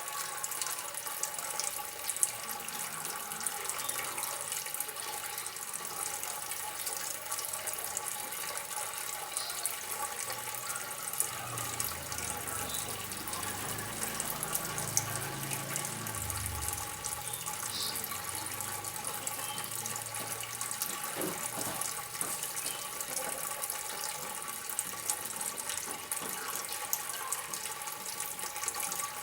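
Water trickling and splashing steadily, a continuous hiss with small scattered drips and ticks.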